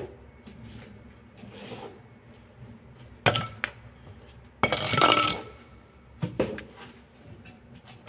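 Bricklaying: a steel trowel clinking and tapping on hollow clay bricks and mortar, in scattered knocks, with a longer scraping stroke about five seconds in.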